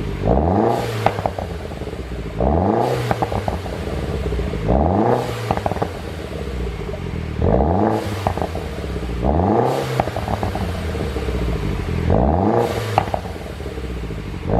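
BMW R56 Mini Cooper S 1.6-litre turbocharged four-cylinder revved in quick blips about six times, each rise and fall in engine pitch followed by a burst of exhaust pops and crackles as the revs drop. The crackle comes from a tune set up to pop on overrun.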